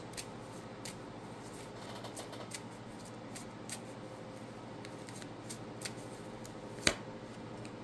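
Romance Angels oracle cards being shuffled by hand: soft, irregular clicks and taps of the cards, with one sharper snap about seven seconds in.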